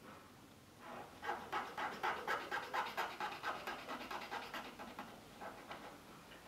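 Small hand file scraping back and forth in a hole in a thin piece of wood, in quick, even strokes about four a second, starting about a second in and easing off near the end.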